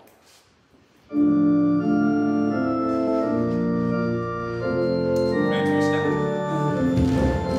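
Organ playing slow, held chords, coming in suddenly about a second in after near quiet.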